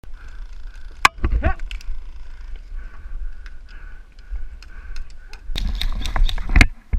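Airsoft gameplay sounds: a single sharp crack about a second in, scattered light clicks, then a busier run of cracks and rustling from about five and a half seconds in.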